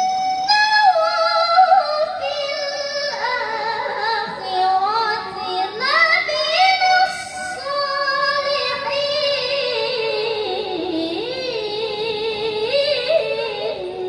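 A young female reciter's voice chanting Quran verses in the melodic tilawah style, amplified through a handheld microphone. She holds long notes and winds through ornamented runs, sinking lower in pitch toward the close of the phrase near the end.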